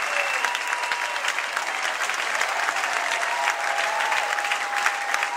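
Audience applauding steadily, with a few long, high-pitched calls rising over the clapping.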